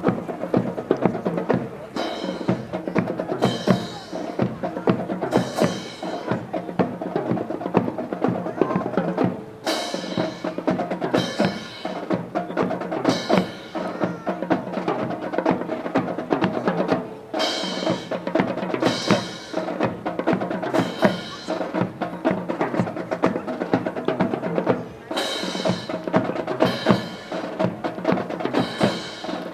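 Rhythmic percussion music: a steady run of sharp, wood-block-like clacks and drum strokes, with a bright cymbal-like crash in groups of three, about one every one and a half to two seconds, then a short gap before the next group.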